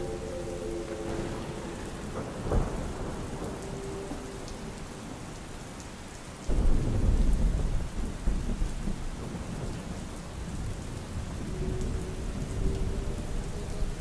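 Steady rain with thunder: a sharp crack about two and a half seconds in, then a heavy low rumble that breaks suddenly about six and a half seconds in and rolls away. A distant synthesized train-horn chord fades out in the first second, and another faint one begins near the end.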